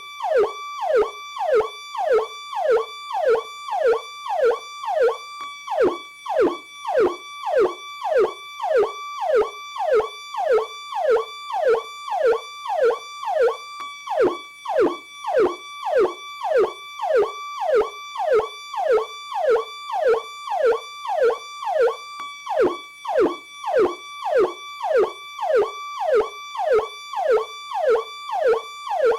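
Electronic police siren sounding its Powercall tone: a rapid series of falling sweeps, about two a second, each jumping to a high pitch and gliding quickly down before starting again.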